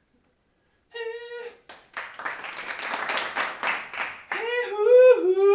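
A brief held hummed note about a second in, then about two and a half seconds of hands clapping. After that a voice hums a wavering tune, the loudest part.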